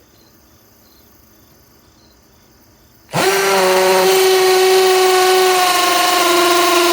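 Quiet for about three seconds, then a Metabo HPT DV18DBFL2 18-volt cordless hammer drill with a 1/4-inch bit starts up and runs steadily at speed, drilling into brick. Its pitch drops slightly partway through.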